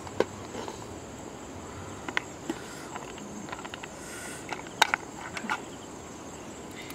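Snail shells knocking against each other and the metal wok as they are stirred with a wooden spatula: a few sharp clicks, the loudest cluster about five seconds in. A steady high insect drone runs underneath.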